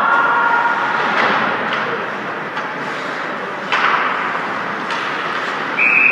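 Hockey game noise in an ice rink: a steady haze with a few sharp knocks of puck or sticks against the boards, the loudest about four seconds in. A referee's whistle blast starts near the end.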